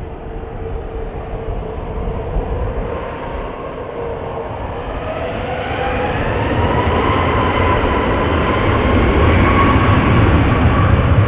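Jet airliner engines spooling up: a whine rising in pitch over a rumble that grows steadily louder.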